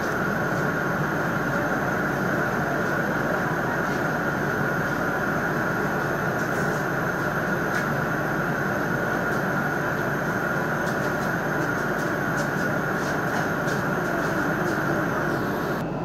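Steady hum of an electric commuter train standing at a station: a constant high whine over a low rumble. It changes abruptly near the end.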